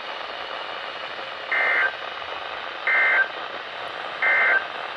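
Three short bursts of warbling SAME digital data tones from a NOAA weather radio broadcast, about a second apart over radio hiss. They are the End of Message code that closes the flash flood warning.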